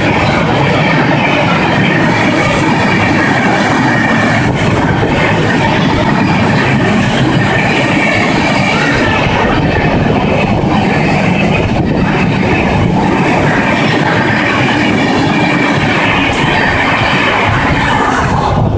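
Howrah Rajdhani Express coaches passing at speed close by: a loud, steady rumble of wheels on rail, with clatter as the wheels cross the rail joints.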